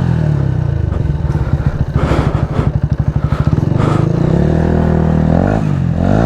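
Yamaha MT-125's single-cylinder four-stroke engine running through an Akrapovič exhaust while riding, holding a steady pitch, then dipping and rising in pitch twice near the end as the throttle is worked.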